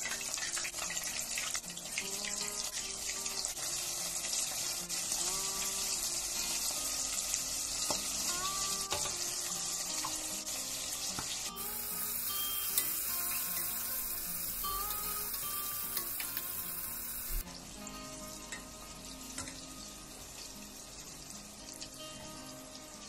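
Battered chicken feet deep-frying in a pot of hot oil: a steady sizzle that starts suddenly and turns quieter near the end.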